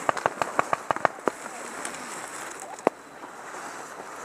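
Paintball markers firing: a rapid, irregular string of sharp pops for about the first second, then a single pop about three seconds in.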